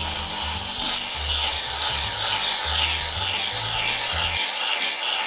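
Aerosol can of shaving foam spraying a long, steady hiss of foam, starting abruptly and cutting off after about five seconds.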